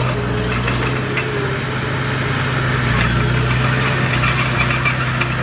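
Heavy diesel engine running steadily at low revs, a constant deep hum.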